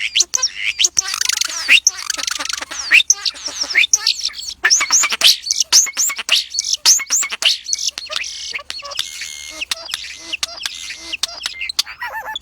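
Several birds chirping and singing at once: a dense run of rapid high chirps and sweeping whistles.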